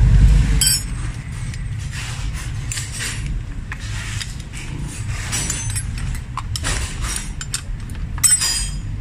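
Hand tools and the steel EGR valve and pipe clinking and scraping as a nut is worked loose with a wrench and the parts are handled, in scattered irregular clicks with a sharper clink about a second in and another near the end. A low steady rumble runs underneath.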